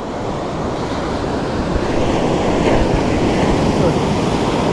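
Sea surf: waves breaking and washing up the sand, swelling louder over the first couple of seconds, with wind buffeting the microphone.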